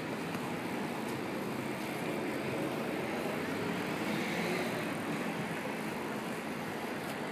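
Steady background noise of city traffic, swelling a little about four seconds in.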